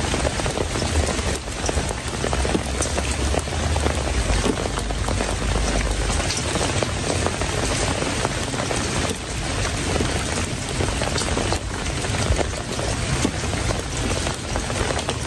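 Steady rain falling, a dense hiss of many small drops hitting close to the microphone, with a low rumble underneath for the first several seconds.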